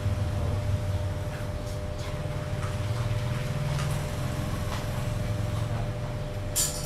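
A steady low mechanical hum with a faint steady tone above it, a few faint clicks, and a short sharp hiss near the end.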